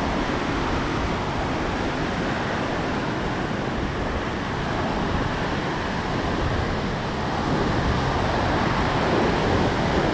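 Ocean surf breaking and washing up a sandy beach: a steady rush of waves, with wind on the microphone.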